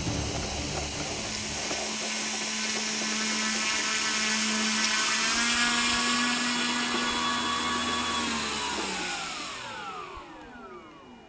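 Twin E-flite Power 32 brushless electric motors turning three-blade propellers on a Hangar 9 Twin Otter RC model, a steady whine at low throttle that steps up a little about halfway. In the last few seconds the motors are throttled off and the whine falls in pitch and fades as the props spin down.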